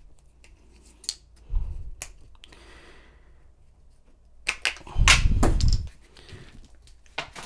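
Old AA batteries being taken out of a plastic lock battery tray: a few light clicks, then a louder bout of clicking, knocking and rattling about five seconds in.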